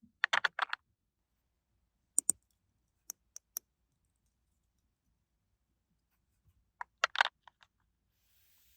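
Small hard plastic toy pieces clicking and tapping as they are handled and set down: a quick cluster of clicks near the start, a pair about two seconds in, three single ticks a little later, and another cluster about seven seconds in.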